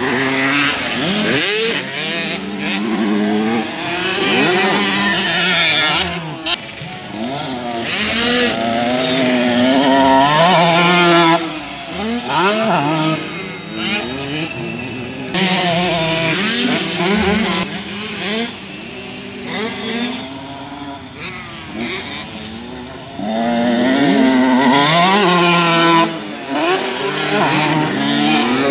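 Motocross bike engines revving hard and easing off again and again, the pitch climbing through the gears and dropping when the throttle closes; among them is a KTM 125cc two-stroke motocross bike.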